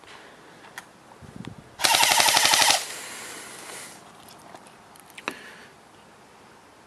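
Airsoft rifle firing one full-auto burst of about a second, around fourteen rapid shots, followed a few seconds later by a single sharp click.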